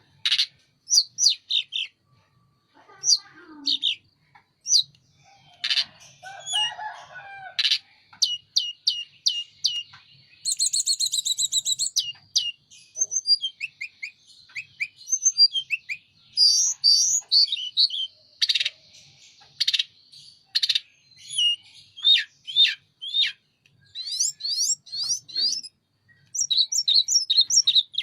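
A tledekan gunung songbird singing energetically, phrase after phrase of sharp, high chirps and quick rising and falling notes, with a rapid trill about ten seconds in.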